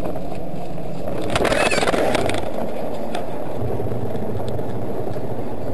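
Steady car driving noise as picked up by a dashcam. A loud, noisy burst lasting about a second comes in around a second and a half in, and a few faint clicks follow later.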